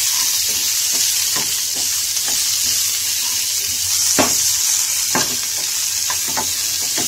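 Chopped green capsicum sizzling in a little hot oil in a metal pan. A wooden spatula stirs it, scraping and knocking against the pan, with the sharpest knock about four seconds in.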